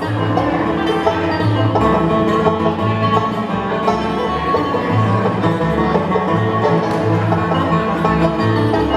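Live bluegrass band playing an instrumental break: rapid banjo picking over acoustic guitar and a walking upright bass line.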